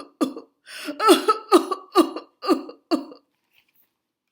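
A woman's voice making a quick run of short, hiccup-like vocal sounds without words, about two a second, each falling in pitch. They stop a little after three seconds in.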